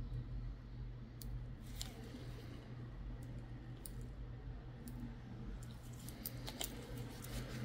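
Scattered sharp metal clicks and snips from podiatry instruments, such as nail nippers, working on a toenail, with several close together near the end. A steady low hum runs underneath.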